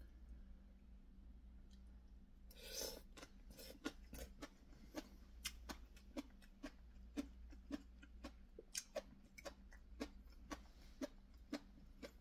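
Close-up chewing of crisp shredded green papaya salad: sharp crunches about twice a second, in time with the jaw. A brief scraping noise about two and a half seconds in.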